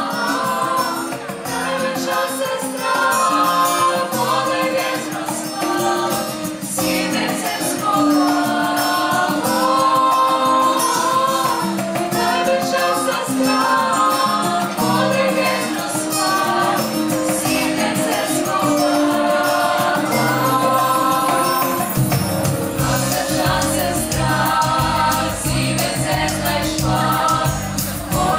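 Children's vocal ensemble singing a song together into stage microphones, over accompaniment with a light ticking percussion; a deep bass line comes in about two-thirds of the way through.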